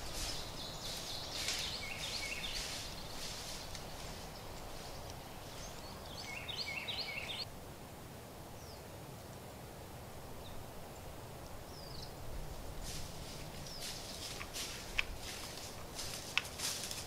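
Rustling and crunching in dry leaf litter at the start and again for the last few seconds, with two short high chirping phrases from a songbird, about two seconds in and about six seconds in. A couple of sharp clicks come near the end.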